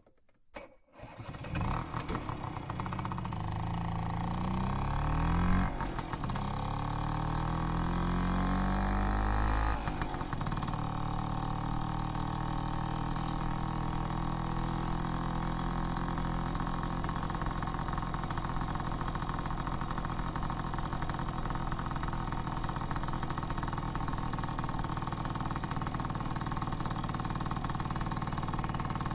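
Vespa PX 200 scooter's two-stroke single-cylinder engine with an old exhaust starting about a second in. It revs up twice with the pitch climbing each time, then settles to a steady idle from about ten seconds on.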